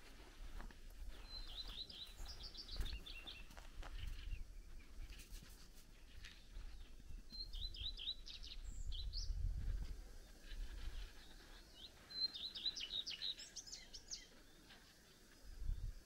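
A songbird singing the same short song three times, about five seconds apart: each song a quick run of high notes falling in pitch, lasting about two seconds. Low rumbles sit underneath, loudest near the end.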